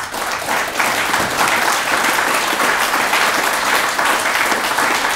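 Audience applause: many people clapping together at a steady level.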